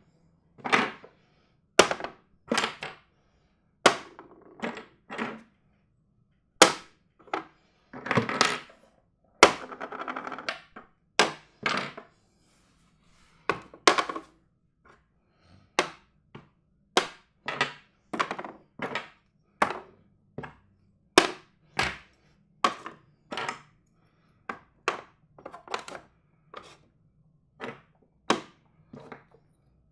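Chess pieces being set down on a board, a series of sharp clacks at an irregular pace of about one to two a second, with a longer noisy stretch around ten seconds in.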